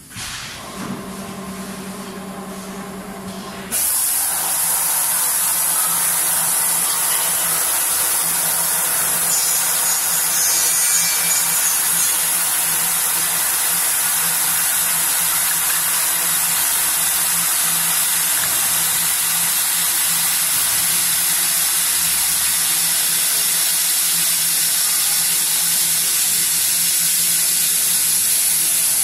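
CNC pantograph cutting machine at work: a motor hum starts, then about four seconds in a loud, steady hiss cuts in with a low hum under it and keeps going.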